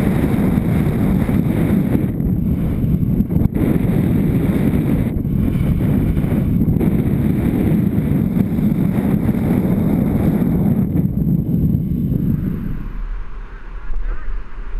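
Wind rushing over the microphone of a camera on a kite buggy speeding across beach sand, with a few brief knocks, dropping away sharply about thirteen seconds in.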